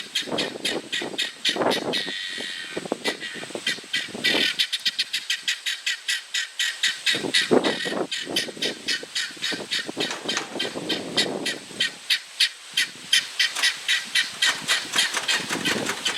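International Harvester Cub four-cylinder flathead engine on a hay baler, turning over with a fast, even chuffing clatter of about five pulses a second, on an engine that has been hard to start after some 30 years idle.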